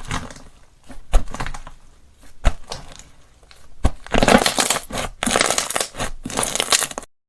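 Slime being squeezed and pressed by hand, giving crackling squishes with a few sharp pops, then a longer dense run of crackling that cuts off suddenly near the end.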